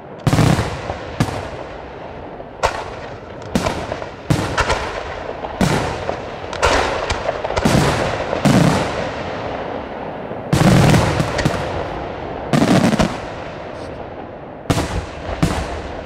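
Aerial firework shells bursting in quick, irregular succession: a dozen or more sharp bangs, each trailing off before the next, with a dense run of reports a little past ten seconds in.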